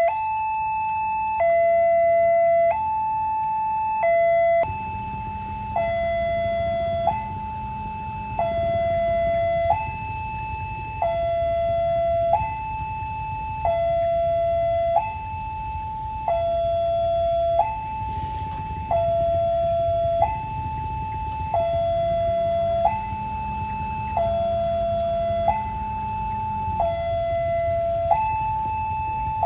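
Railway level crossing warning siren sounding a steady two-tone alarm: a higher and a lower tone alternate about every second and a quarter, the warning that a train is approaching and the barrier is closed. A low rumble runs underneath from about five seconds in.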